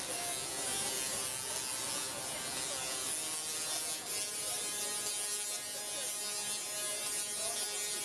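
Singing Tesla coils playing music as a harsh electric buzz rich in overtones, the notes changing about four seconds in. Faint voices sound underneath.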